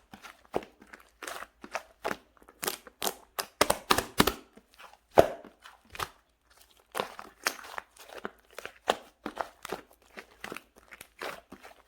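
Peanut-cream slime being squeezed and poked by hand, giving irregular crisp pops and crackles, a few each second, the loudest about five seconds in.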